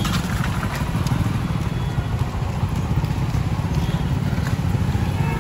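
Street traffic noise: a steady low rumble of motorcycle and other vehicle engines.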